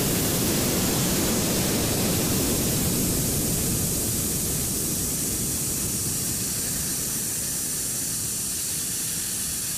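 Compressed air hissing out of the opened brass ball valve on a Dynatec air compressor's tank manifold, as a steady, loud rush that slowly weakens as tank pressure falls. The tank is being emptied so that the compressor will run again to build back up to 8 bar.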